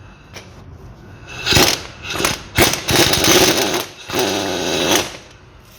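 Impact wrench hammering in several short bursts as it loosens one of the driveshaft's flange bolts at the gearbox.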